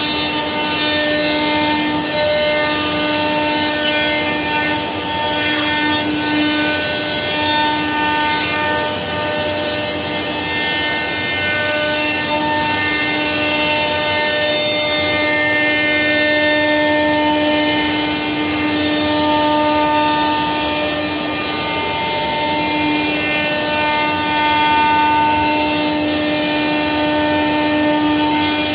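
Masterwood CNC machining center routing a birch wood blank: the router spindle runs with a steady whine of several held tones over continuous machining noise.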